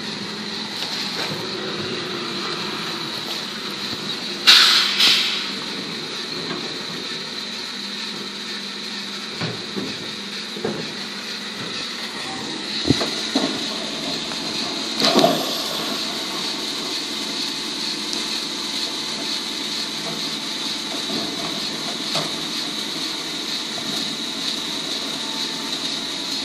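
Garbage truck running at the kerb with a steady mechanical drone. A loud burst comes about four and a half seconds in, and several thumps and clanks follow between about nine and fifteen seconds in as wheelie bins are handled at the truck.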